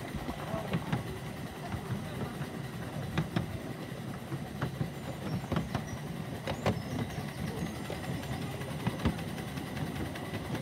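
Miniature railway train running by: a low rumble with many sharp, irregular clicks.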